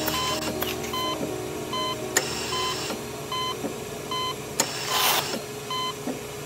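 Electronic heart-rate monitor beeping steadily, one short beep about every three-quarters of a second, over a low steady drone. A brief rushing hiss comes about five seconds in.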